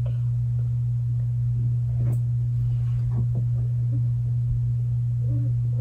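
A steady low hum that does not change, with a few faint small ticks over it.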